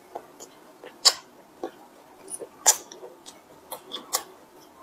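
Crisp crust of a cream-filled puff crackling as it is torn apart by hand: a string of short, sharp crackles and clicks, the loudest about a second in and again near the middle.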